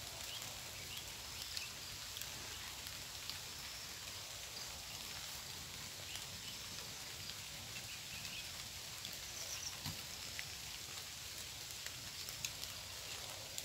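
Faint outdoor orchard ambience: a steady soft hiss with a few short, faint bird chirps scattered through it, and a small knock near the ten-second mark.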